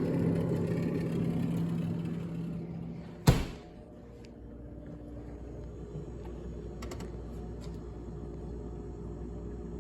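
A steady mechanical hum fades over the first few seconds. A single sharp thump comes a little over three seconds in, and a quieter low hum carries on after it.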